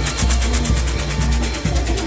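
Fireworks on a vaca loca, a bull-shaped frame carried by a runner, spraying sparks with a rapid, even crackle of about a dozen pops a second. Loud music with a deep beat plays underneath.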